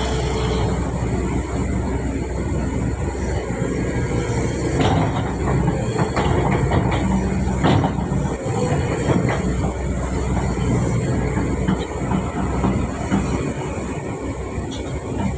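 Hydraulic excavator's diesel engine running steadily under load, with scattered metal clanks from the working boom and bucket.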